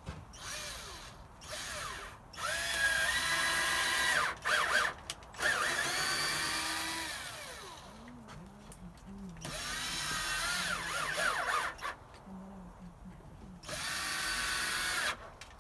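Handheld power drill run in several bursts of a few seconds each, its motor whine rising and falling in pitch as the trigger is squeezed and eased, drilling holes into a wooden board.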